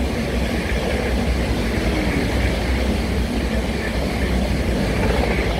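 A Bombardier Z50000 Francilien electric multiple unit, two coupled sets of 16 cars, running through a station at about 140 km/h. It makes a loud, steady rush of wheels on rail and air, with a deep rumble underneath.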